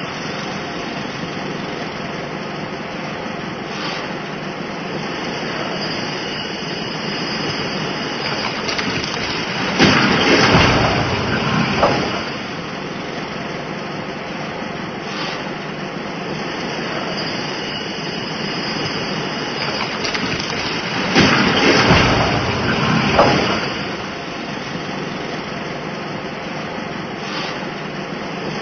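City construction-site ambience: a steady background din of machinery and traffic. It swells louder twice, about ten seconds in and again about twenty-one seconds in, each time for two to three seconds.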